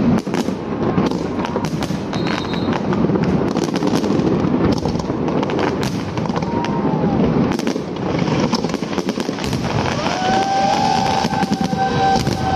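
Aerial fireworks shells bursting in quick succession: a dense stream of bangs and crackles, with a long held tone over them in the last few seconds.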